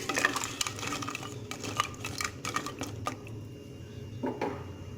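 Metal kitchen utensil clinking and tapping against a cooking pot: a quick, irregular run of light clicks for about three seconds, then fewer, with two duller knocks near the end.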